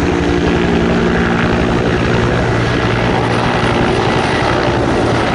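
Two-bladed firefighting helicopter flying past and climbing away with a water bucket slung beneath, its rotor beating steadily over the engine drone.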